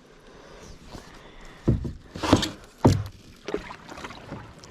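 A run of about four dull knocks and thumps in a small boat, roughly half a second apart, close to a body-worn action camera.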